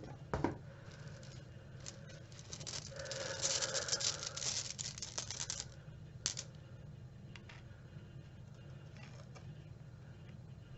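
Small rune stones rattling and clicking against one another in a cloth pouch as one is drawn. The rattling is densest for a few seconds near the middle, with a few single clicks before and after.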